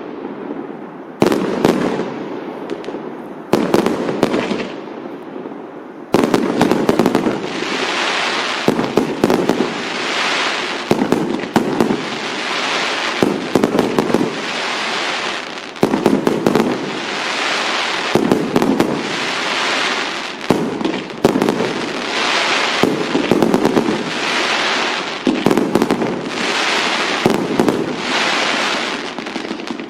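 Fireworks going off: a few separate bangs in the first seconds, then from about six seconds in a dense, continuous barrage of bangs and crackling that swells and fades every second or two.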